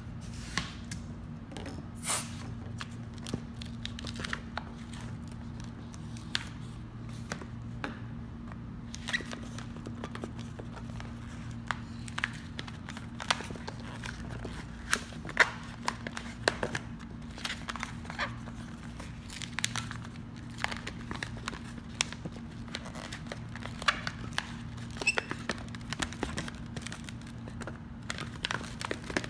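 Long latex modelling balloon being twisted and handled into a balloon dog: scattered short rubbery squeaks, creaks and crinkles. A steady low hum runs underneath.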